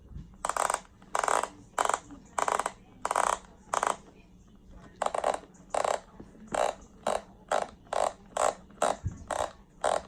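BOA dial on a cycling shoe being twisted to tighten the laces, giving a short burst of ratchet clicks with each twist: more than a dozen twists with a short pause near the middle.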